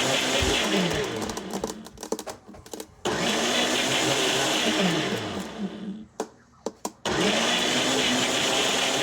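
Kitchen blender crushing frozen mango and ice, pulsed on and off: it runs, is switched off twice with the motor winding down in a falling pitch, and each time starts straight back up.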